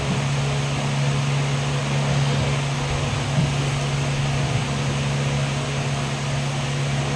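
Electric stand fan running steadily: a constant motor hum under an even whoosh of moving air.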